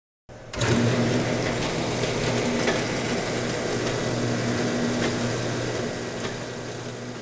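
Machinery running with a steady low hum over a noisy mechanical wash, starting abruptly and easing slightly near the end.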